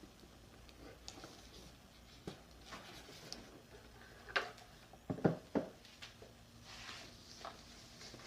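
Small cardboard boxes and packaging being handled and unpacked: soft knocks, taps and rustles, with a few louder knocks about four and a half to five and a half seconds in.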